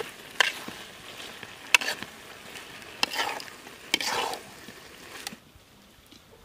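Spatula scraping and stirring prawns and banana flower in a black iron wok, over a frying sizzle, with a sharp scrape roughly every second. The stirring stops about five seconds in.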